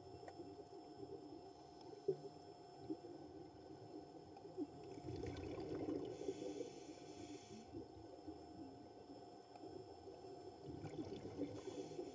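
Underwater sound of faint crackling and bubbling, with two short hissing breaths from a scuba diver's regulator, one about halfway through and one near the end.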